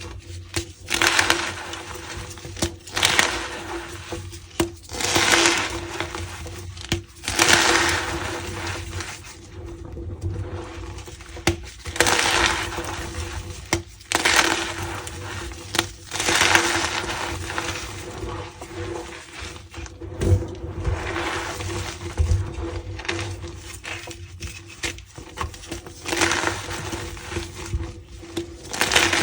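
Reformed blocks of gym chalk being crushed, crumbling with a squeaky crunch, one squeeze about every two seconds.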